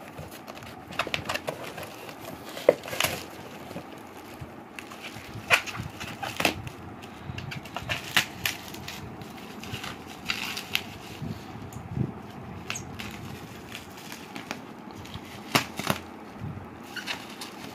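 Cardboard box, packing tape and plastic bubble wrap being torn and handled: irregular crinkling and rustling with many sharp clicks.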